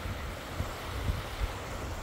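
Small Lake Superior waves breaking and washing up a sandy beach in a steady wash, with wind gusting on the microphone as a low rumble.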